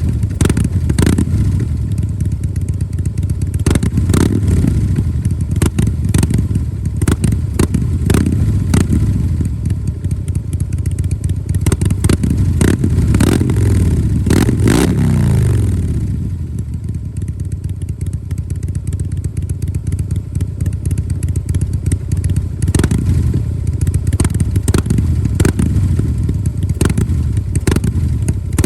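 Harley-Davidson Breakout CVO 110's V-twin engine revving again and again through its exhaust. About fifteen seconds in the revs fall away to a quieter idle for several seconds, then the revving starts up again.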